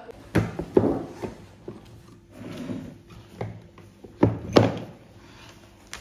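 A series of short knocks and thuds: three in the first second and a half, then a louder pair close together a little past four seconds.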